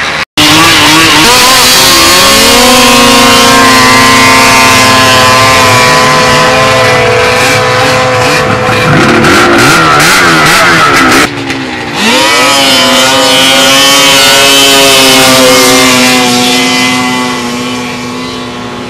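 Snowmobile engine at full throttle on a hill climb: a loud, high engine note that revs up about two seconds in and holds. It breaks off abruptly about eleven seconds in, revs up again and holds, then fades over the last couple of seconds as the sled climbs away.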